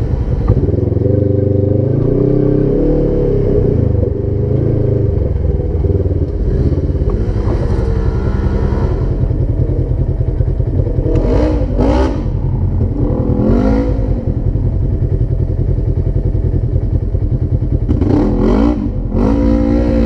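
Side-by-side UTV engine running loud and steady, blipped hard several times with the pitch sweeping up and back down in quick revs.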